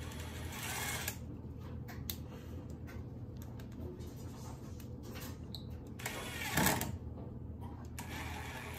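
Cordless drill whirring in short bursts as a screw is driven upward into a wooden framing header, about a second in and again, louder, near six and a half seconds in.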